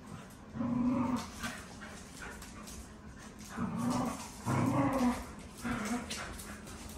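Dogs growling in play while tugging on a rope toy: four low growls, each under a second long, with claws clicking on the hard floor between them.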